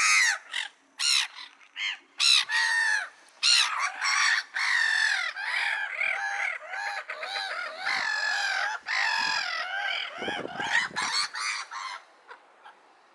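Gulls calling over and over in harsh, laughing cries, several birds overlapping through the middle and thinning out near the end.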